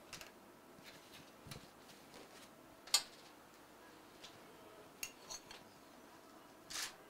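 Quiet room tone with a few scattered sharp little clicks, the loudest about three seconds in, and a short hiss near the end.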